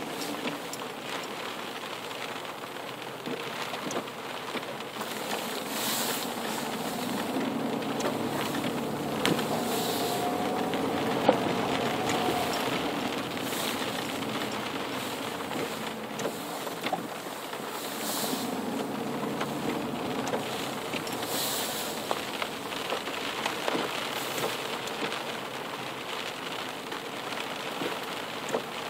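A car driving with its engine running under a steady hiss and patter of water.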